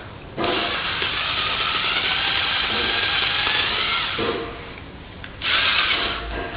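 Power drill running at full speed in two bursts, a long one of about four seconds and then a short one of about a second, spinning an ear of corn on the cob.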